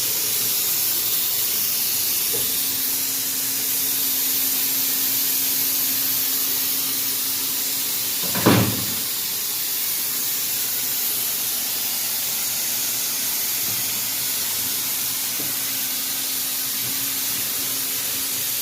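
Air hissing steadily out of a tyre as it is deflated on a tyre changer. A single sharp knock sounds about eight and a half seconds in.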